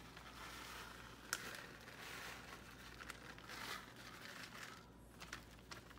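Faint crinkling of a plastic bag of shredded cheese as it is shaken out over a baking pan, in soft swells, with one sharp click about a second in.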